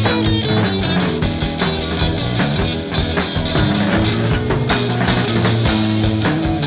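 Rock music with a steady beat: an instrumental stretch without singing.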